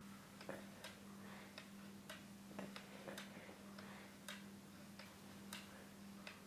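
A clock ticking faintly, a tick roughly every half second, over a low steady hum.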